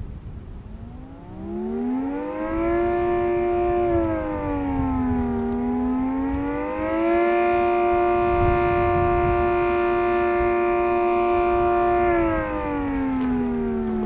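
Homemade dual-tone air raid siren, a fan rotor pulsing air through 10- and 6-slot rings so it sounds two pitches at once. It winds up in pitch about a second in, dips and rises again around the middle, holds a steady howl, then winds down near the end. Not deafeningly loud, but plainly heard.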